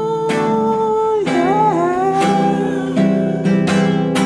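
Music: a nylon-string classical guitar strummed, under a man's long wordless sung note that bends in pitch about a second and a half in.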